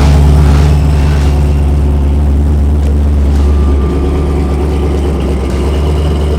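Loud car engine idling steadily close by, a deep even note with no revving.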